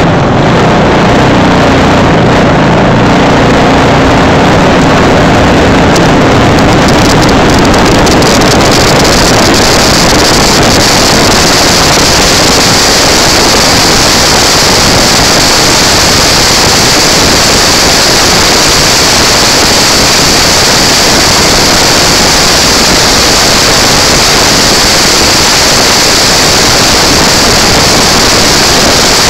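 Go-kart's single-cylinder four-stroke clone engine running at speed on track, recorded very loud with heavy wind noise on the microphone. Its pitched note stands out for the first several seconds, then is buried in a steady wash of noise.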